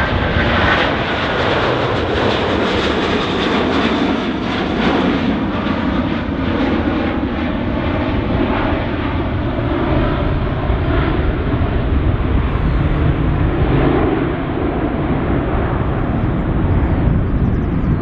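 American Airlines Boeing 777's twin jet engines at takeoff thrust as it climbs away: a loud, steady rumble with crackle, the higher hiss slowly softening as the jet draws away.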